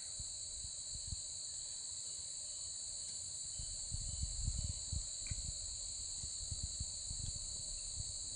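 Insects trilling steadily at a high pitch, with scattered soft low thumps coming in from about three and a half seconds in.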